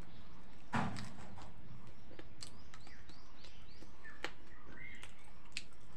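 Small birds chirping, a run of short arched chirps in the middle stretch, over the clicks and smacks of someone chewing chicken. There is one short, louder noise about a second in.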